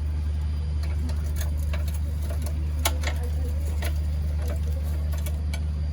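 Scattered sharp metal clicks of a spanner working loose the bolts on a petrol generator's engine mountings, over a steady low hum.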